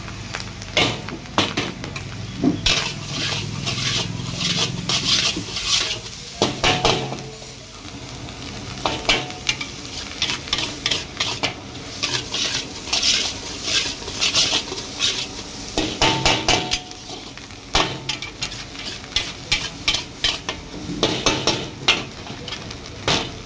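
Long metal spatula scraping and clanking against a large iron wok in repeated strokes as fried rice is stir-fried, over a steady sizzle from the hot pan.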